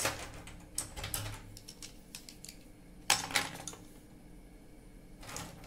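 Pencils clicking and clattering against one another and the table as a handful is set down, in three short clatters.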